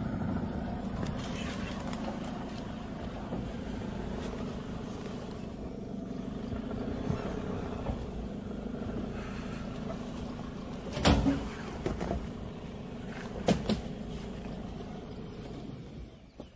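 A vehicle's engine idling steadily, with two or three sharp knocks past the middle; the hum fades near the end.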